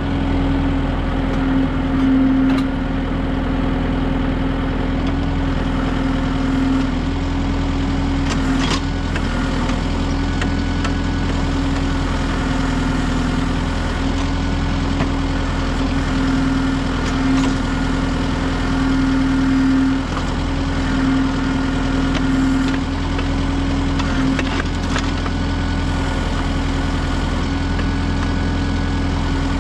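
Kubota M6060 tractor's diesel engine running steadily while it powers an LW-6 backhoe digging a ditch in rocky ground. A few sharp knocks come through now and then.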